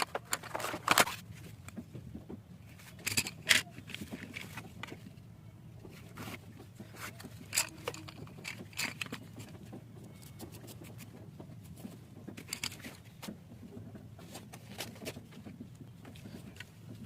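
Stationery packaging being handled and opened: scattered rustles, small clicks and tearing sounds, loudest in the first few seconds, over a steady low hum.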